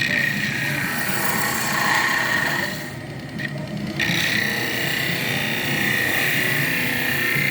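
Wood lathe turning a workpiece while a turning tool cuts into the spinning wood, a steady scraping hiss. It drops away for about a second, about three seconds in, then resumes.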